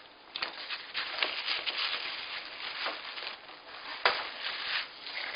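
Rustling and scraping of cardboard packaging while the boxed hard-shell gun case is lifted out, with a sharp knock about four seconds in.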